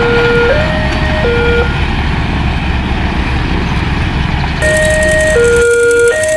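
Railway level-crossing warning siren sounding a two-tone alternating signal, a higher and a lower note of about 0.7 s each, over a loud low rumble. The siren cuts off abruptly about one and a half seconds in and starts again about four and a half seconds in; the rumble stops about five and a half seconds in. This crossing's siren is one that the uploader calls faulty.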